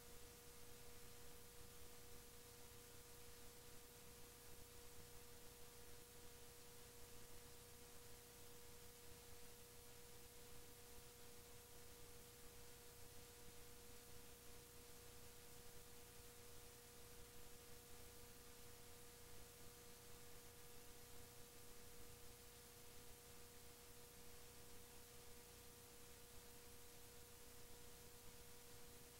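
Near silence: a faint, steady hum and a thin held tone over hiss, from a VCR playing a blank stretch of videotape.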